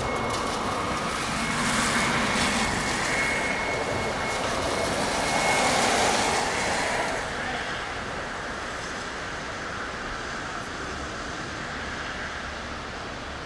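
City traffic and wind noise that swells to a peak over the first half, as if vehicles are passing, then settles to a steady background wash. A thin, steady, high-pitched ringing tone sits behind the traffic and fades out about halfway through.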